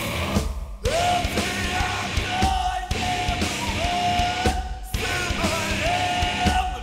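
Metal song: full band with drums and guitars under a singer's yelled vocals, held as long level notes; the band breaks off briefly twice.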